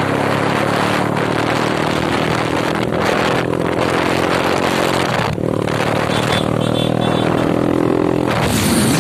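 Motorcycle engine running steadily while riding, under heavy wind rush on the microphone; the engine note dips briefly about five seconds in.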